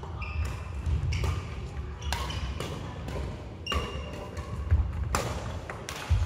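Badminton rally: sharp racket strikes on the shuttlecock about once a second, with sneakers squeaking briefly and footsteps thudding on a wooden sports-hall floor.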